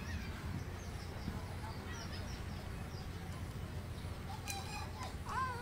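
Background rooster and small birds: faint high chirps over a steady low rumble, then near the end a rooster begins a long crow that holds its pitch before falling away.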